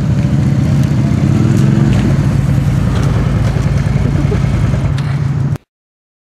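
Vehicle engine running steadily close by, its pitch rising slightly in the first two seconds. The sound cuts off abruptly about five and a half seconds in.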